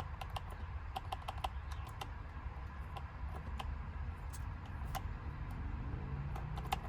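Light, irregular clicking from a hand tool working the car battery's terminal as the battery is reconnected, some clicks coming in quick runs.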